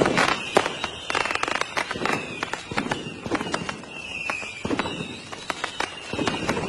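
Fireworks crackling, with many sharp irregular pops and a high whistle that falls in pitch every second or so.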